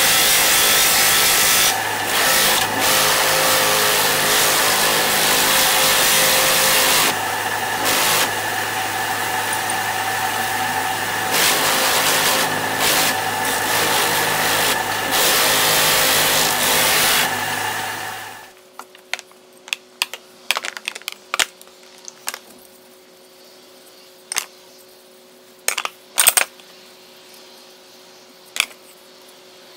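Electric bench sander running with wood being sanded on it, the noise steady with brief dips several times; the machine shuts off about 18 seconds in. After that, a faint steady hum with scattered light clicks and knocks.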